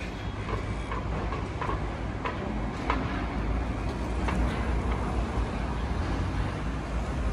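Steady low rumble of a moving vehicle, with a few light clicks and knocks scattered through the first half.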